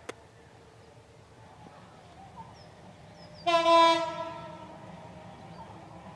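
Horn of an approaching locomotive sounding one blast about three and a half seconds in, loud for about half a second and then tailing off over a couple of seconds.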